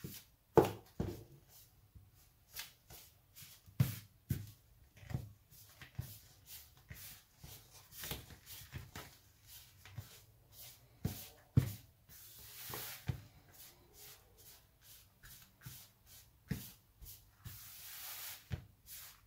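A spoon stirring and scraping crumbly pastry dough of flour, butter and egg in a plastic mixing bowl: irregular knocks and scrapes, with a couple of longer rubbing scrapes in the second half.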